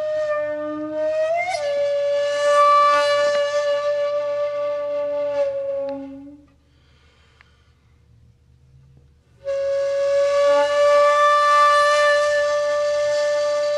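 Background music: a flute-like wind instrument holding long, steady notes. It fades out about six seconds in and comes back after about three seconds of near silence.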